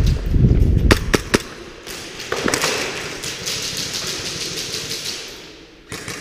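Airsoft gunfire: a few sharp cracks about a second in, then a stretch of rapid noisy fire and clatter that fades out, over the rumble and footfalls of the player running in the first second or so.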